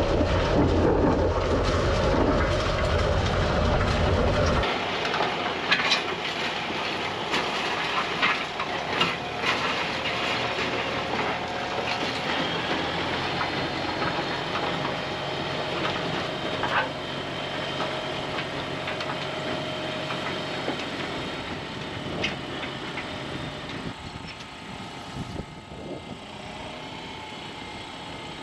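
Heavy equipment running with loud metallic clanking and rattling. The deep engine sound drops away sharply about four and a half seconds in, leaving a quieter running machine with scattered clanks that fade toward the end.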